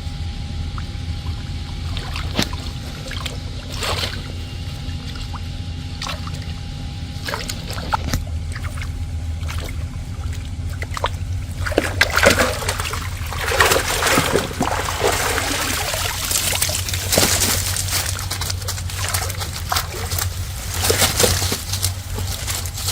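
Pond water splashing and sloshing in bursts during cast-net fishing, busiest from about halfway in and again near the end, over a steady low hum.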